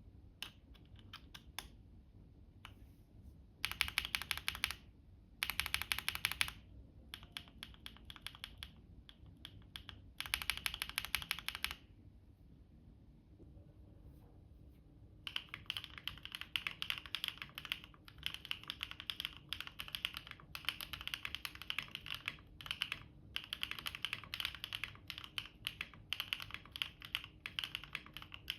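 Mechanical keyboard with HMX Sugar Rush switches in a foamless, gasket-mounted board with a polycarbonate plate, typed on: a clacky sound from each keystroke. It starts with a few short bursts of rapid key presses separated by pauses, then settles into steady continuous typing about halfway through.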